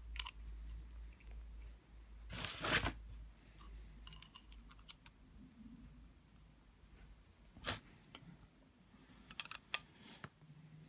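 Pliers gripping and working a small brass terminal to pull a copper strip off it: scattered light metallic clicks and scrapes, with a louder scrape about two and a half seconds in and a sharp click near eight seconds.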